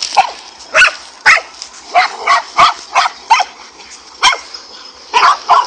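Dogs barking repeatedly, about two sharp barks a second, while harrying a king cobra.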